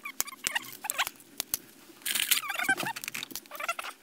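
Caulk gun pushing sealant out of its tube: sharp clicks from the gun and short squeaky squelches as the sealant comes out of the nozzle.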